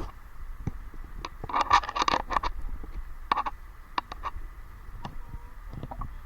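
Scattered knocks and scrapes, busiest about two seconds in, over a low wind rumble on the microphone.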